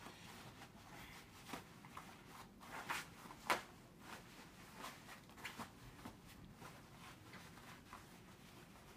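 Faint rustling and brushing of an Air Force ABU uniform sleeve being folded and rolled by hand, in scattered short scuffs. The sharpest scuff comes about three and a half seconds in.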